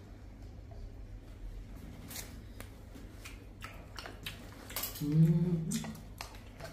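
A metal spoon scraping and clicking inside a plastic jar as food is scooped out, a few short scrapes. A person's voice sounds briefly about five seconds in.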